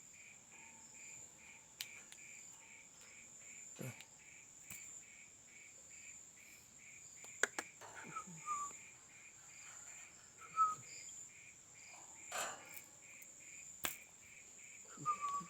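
Crickets chirping in the background: a steady high hum with regular pulsing chirps over it, broken by a few scattered sharp clicks and brief high chirps.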